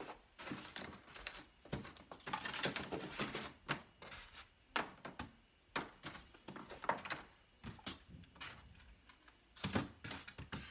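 Irregular knocks, scrapes and rustling as accessories are handled in a styrofoam-lined cardboard box.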